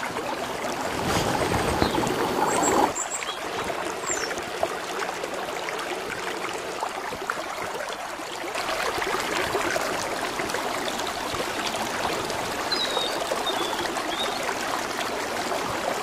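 A stream running over rocks: a steady rush of water, with a few faint, short, high chirps.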